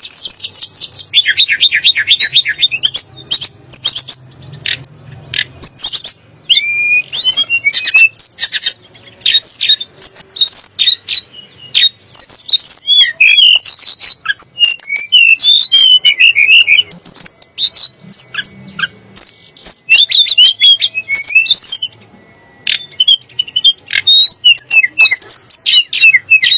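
Tledekan gunung, a small songbird, singing a fast, varied song: rapid chirps and clicks, short sliding whistles and a quick buzzing trill, one phrase straight after another.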